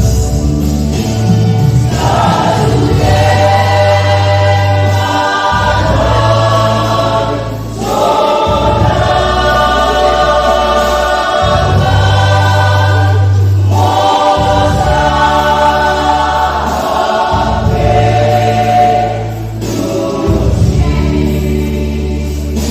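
Church choir singing a Batak hymn in several voice parts, in long phrases with short breaths between them, over deep held bass notes from the accompaniment.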